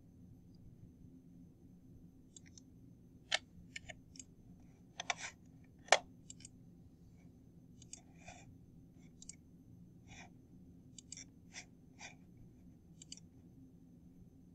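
Computer mouse clicking: about fifteen short, sharp clicks scattered irregularly, some in quick pairs, the loudest about six seconds in, over a faint steady low hum.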